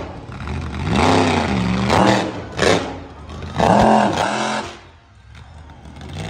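Monster truck engine revving in repeated surges, its pitch rising and falling three or four times, then dropping to a quieter lull near the end.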